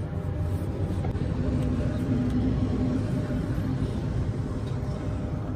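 A vehicle engine running steadily with a low, even hum. A higher tone joins it for about a second and a half, starting about a second and a half in.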